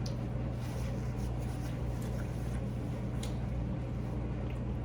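Faint, wet eating sounds: a few soft mouth clicks from chewing a taco egg roll, over a steady low hum.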